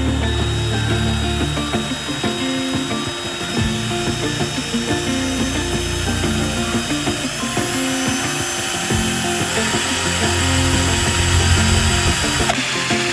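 Total 12V cordless drill/driver running in several long stretches, its motor sound changing and stopping about twelve and a half seconds in, under background music.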